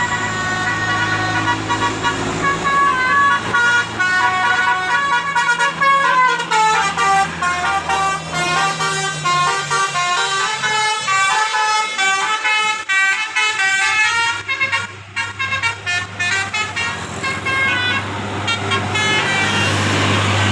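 Bus telolet horn playing a long tune of quick notes, the melody stepping down through the middle and climbing again, with the bus engine running underneath.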